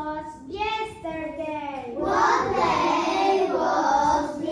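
Children singing a song: one voice holds sung notes at first, then many young voices join in together, louder, about two seconds in.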